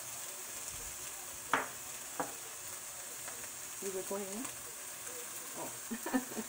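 Shrimp sizzling in a hot wok, a steady high hiss, with two sharp clacks in the first couple of seconds.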